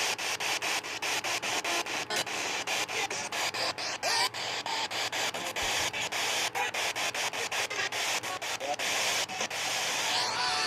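Weather radio receiver on a weak channel giving loud static hiss that breaks up several times a second, with a faint broadcast voice buried in the noise.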